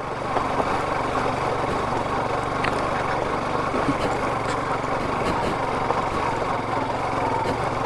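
Yamaha FZ motorcycle engine running at a steady pace while the bike is ridden along a rough off-road track.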